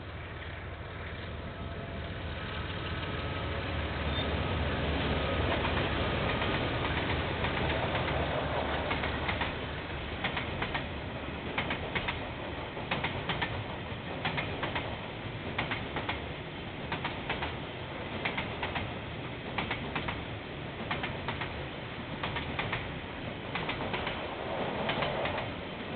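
KiwiRail train passing: the diesel locomotive's low rumble builds over the first few seconds, then a long run of sharp wheel clicks over the rail joints as the wagons roll by.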